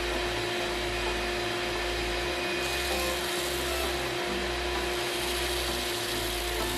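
Wood lathe running with a steady hum while sandpaper is held against the spinning wood-and-resin blank, a hiss from the sanding coming in about two and a half seconds in. Background music with a steady bass beat plays underneath.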